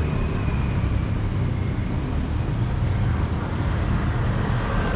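Steady street traffic noise: a continuous low rumble of passing vehicles.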